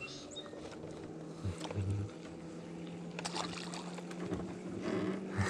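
Small outboard boat motor running with a steady low hum, with a few sharp clicks about three seconds in.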